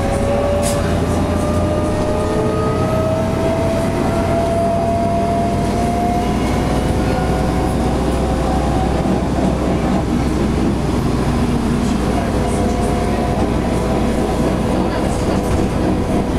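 Inside a moving bus: steady engine and road rumble, with a thin whine that rises slowly in pitch over the first several seconds.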